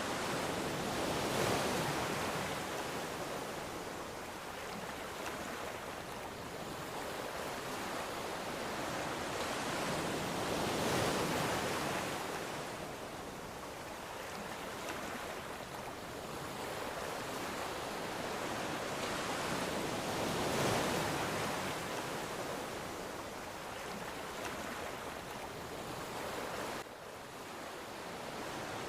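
Ocean surf: a continuous hiss of breaking waves that swells with each breaker, three times, about every nine to ten seconds.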